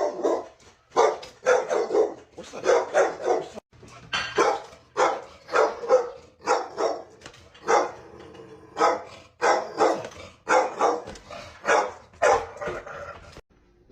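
Dog barking over and over, about two barks a second, stopping abruptly near the end.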